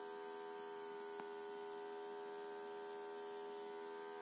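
A small vibration motor taped to a saucepan, humming steadily and evenly, heard faintly through the wall from the next room. Only one of its two motors is running; the other's wire has torn loose.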